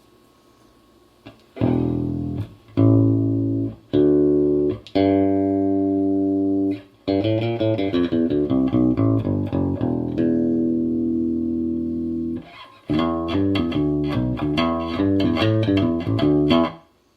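Electric bass guitar, a Squier P-bass fitted with a Hipshot A-style brass bridge, played through an amplifier, with a bright tone. After a quiet start, a few single notes are left to ring, then comes a quicker run of notes, one long held note, and another fast run after a brief pause.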